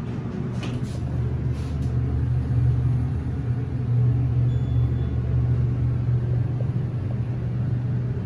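Elevator car travelling down, with a steady low hum and rumble from the moving car and its machinery. A few light clicks come in the first two seconds.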